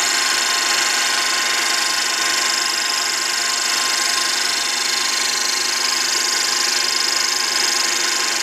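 Mini lathe running steadily while a diamond burr spinning in the chuck grinds a slot into a steel shell holder, a steady machine hum with thin whining tones under a constant high hiss from the cut.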